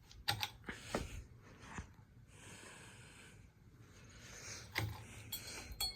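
A 1990 Crest ceiling fan with worn bearings turning slowly on medium speed, giving a few faint, irregular clicks.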